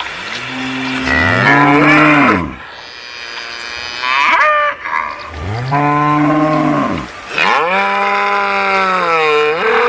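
Cattle mooing: about four moos in a row, the first two overlapping, then a long drawn-out moo that falls in pitch at its end.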